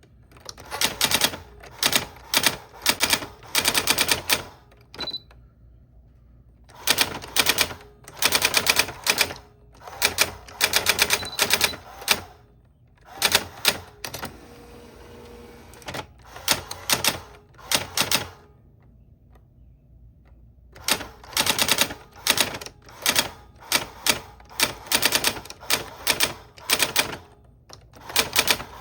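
Old typewriter being typed on: runs of rapid key strikes in bursts of a second or a few seconds, broken by short pauses.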